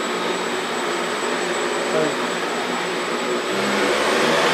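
LotusRC T580P+ quadcopter's four brushless motors and propellers spinning with a steady whirring hum, getting louder about three and a half seconds in as the throttle goes up and the quad lifts off. All four motors are running again after the crash-damaged motor's wire repair.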